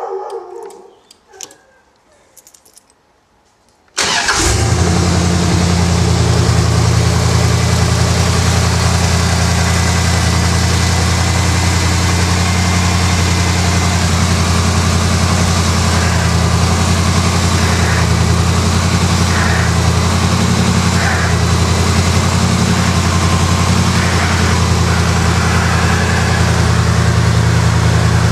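A few clicks of the ignition key, then a Chevrolet V8 engine starts suddenly about four seconds in and settles into a steady idle.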